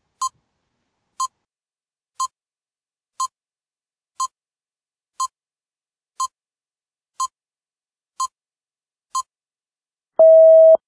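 Countdown timer beeping: ten short high beeps, one a second, then a longer, lower and louder beep near the end signalling that time is up.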